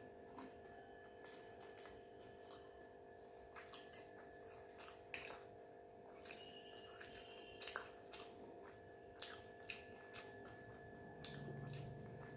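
Faint chewing and mouth sounds of someone eating, with scattered crisp clicks and crackles, over a steady background electrical hum.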